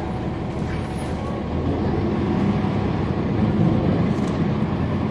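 Cummins ISL9 diesel engine of a NABI 40-SFW transit bus running under way, heard from inside the bus. Its low drone grows louder about two seconds in, then eases slightly near the end.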